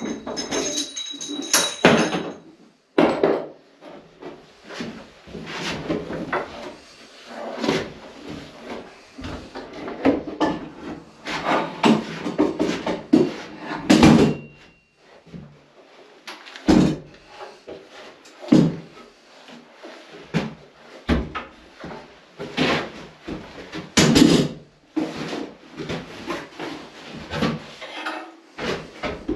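Irregular knocks, bumps and scrapes of heavy things being handled and shifted, with a short high squeak about a second in.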